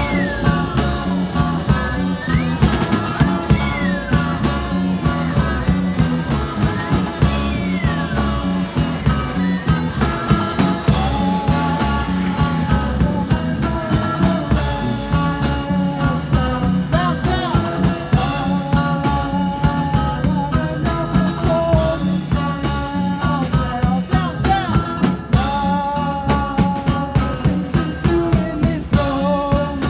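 Live rock band playing: electric guitars, bass and drum kit keeping a steady beat. Over the first several seconds a high lead line slides up and down in pitch, and later a voice holds long sung notes over the band.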